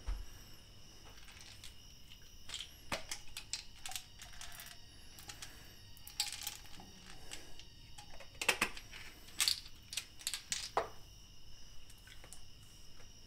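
Small clicks and rattles of a plastic prescription pill bottle and toiletries handled on a bathroom counter, in scattered short bursts, with a low thud right at the start.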